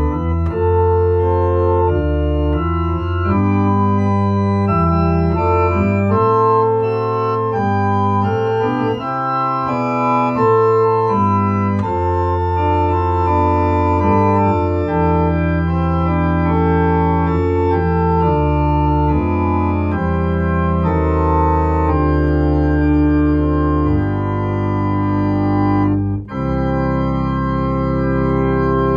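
Two-manual electronic church organ playing a hymn in slow, sustained chords over a deep pedal bass. Near the end there is a brief break, then a final held chord.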